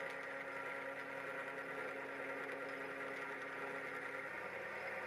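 A machine-tool electric motor running steadily with a hum made of several steady tones; one low tone drops out about four seconds in.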